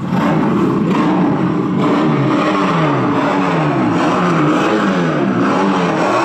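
Engine revving, its pitch repeatedly climbing and dropping in quick sweeps.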